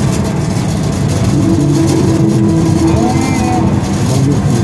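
A car driving along the road: steady engine and road noise heard from inside the vehicle. Faint pitched tones come through briefly around the middle.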